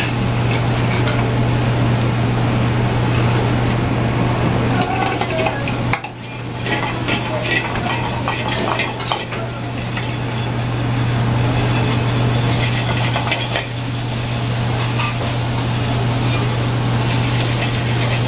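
Metal utensil clinking and scraping in steel sauté pans of Brussels sprout leaves frying over gas burners, with a sizzle underneath. A steady low hum runs throughout.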